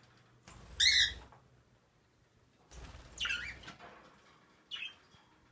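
Pet budgerigars chirping: one loud, bright chirp about a second in, then softer chirps around three seconds in and a short one near the end, with a low rumble under the first two.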